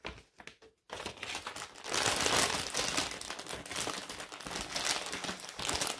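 Small plastic bags of diamond painting drills crinkling as they are handled. The crinkling starts about a second in and gets louder shortly after.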